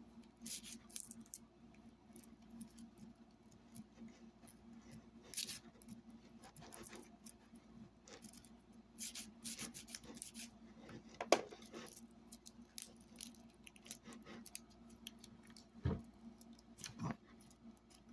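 Faint, scattered scratching and small clicks of a tool scraping the coating off a speaker's coil winding to see whether the wire is copper or aluminum, with one sharper click about 11 seconds in, over a steady low hum.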